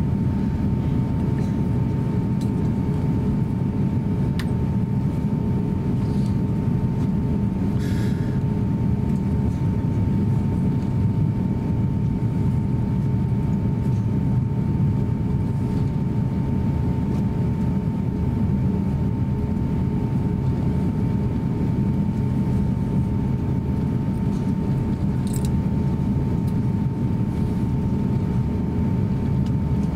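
Steady cabin noise inside an Airbus A350-900 taxiing: a low, even rumble from its Rolls-Royce Trent XWB engines at taxi thrust and the rolling airframe, with a thin steady tone above it. A couple of faint clicks come through, one about eight seconds in.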